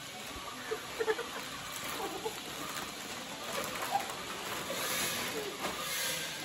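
Potato-chip packets crinkling and rustling as they are handled and torn open, with chips being eaten, under short chirping bird calls in the background.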